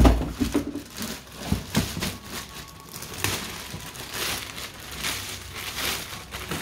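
Clear plastic wrapping crinkling and rustling in irregular bursts as it is pulled off a padded rod-case bag, after a loud thump at the very start.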